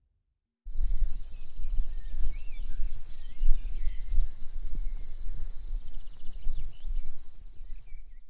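Crickets chirping as a steady, unbroken high-pitched chorus over a low rumble, starting suddenly about half a second in and cutting off abruptly near the end.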